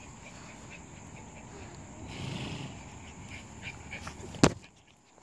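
Young puppies being handled in grass, with faint rustling and small vocal sounds and a brief soft grunt about two seconds in. A single sharp knock near the end is the loudest sound.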